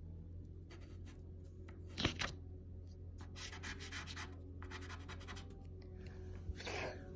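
Pastel stick scratching across paper in a run of short strokes, with a sharp knock about two seconds in, over a low steady hum.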